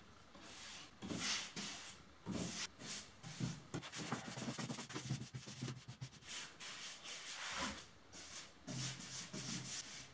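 Brush and rag strokes spreading wood finish over a plywood sheet: a run of irregular scrubbing and swishing strokes, one or two a second.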